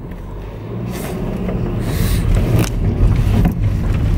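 Car engine and road rumble heard from inside the cabin, growing steadily louder as the car pulls away and gathers speed, with a few light clicks.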